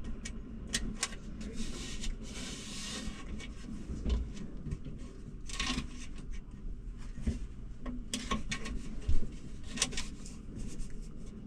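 Handling noises under a sink at a garbage disposal: scattered clicks and light knocks with a couple of short scraping rubs, and one sharper knock about nine seconds in.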